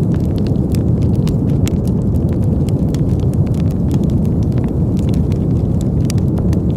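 Wood campfire crackling, with many irregular sharp pops and snaps, over a steady low rumble.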